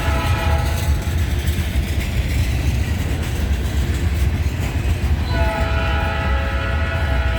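Diesel freight locomotive horn. One blast ends about a second in, and another starts about two-thirds of the way through and carries on, over the steady low rumble of the slow-moving CN locomotives and train.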